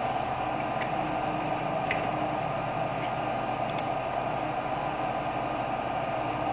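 Steady hiss and hum of background noise from the recording setup, with a few faint, sharp clicks scattered through it.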